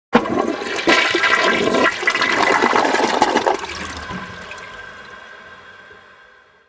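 A rush of water that starts suddenly, surges loudly for about three seconds, then dies away gradually before cutting off abruptly.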